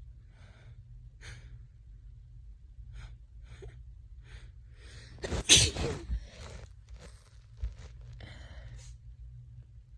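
A person with a cold making a series of short, breathy in-breaths as a sneeze builds. One loud sneeze breaks out about halfway through, followed by softer breathing.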